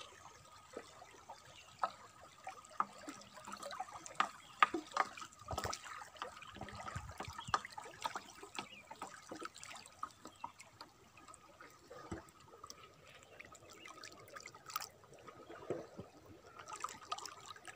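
River water gurgling and lapping past the side of a wooden canoe, with many small irregular splashes and trickles. Near the end a hand trailing in the water adds a little splashing.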